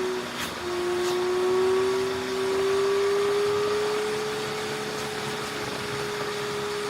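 A steady motor whine with a clear held pitch. It breaks off briefly just after the start, comes back a little lower, then slowly rises over the next few seconds and holds.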